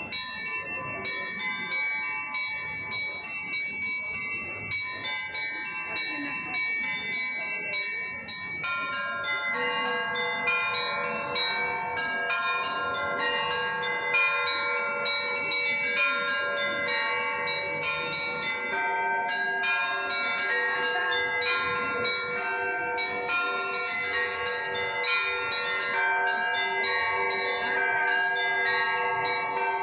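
Orthodox cathedral bells ringing a peal, the overlapping 'crimson ringing' (malinovy zvon): many bells struck in quick succession, their tones sustaining over one another. The ringing grows fuller and louder about eight seconds in as lower bells join.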